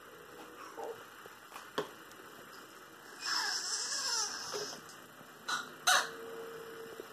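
A young child's high-pitched, dolphin-like squeal, lasting about a second and a half and falling in pitch, about three seconds in. Two short sharp sounds follow about a second later.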